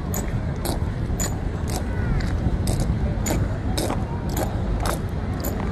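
Honor guards' hard-soled boots striking a stone floor in an even marching cadence: a sharp, metallic click roughly every half second, over a low steady rumble.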